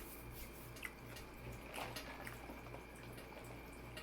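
Faint, soft wet clicks of a person chewing food, a little louder about two seconds in, over a steady low hum.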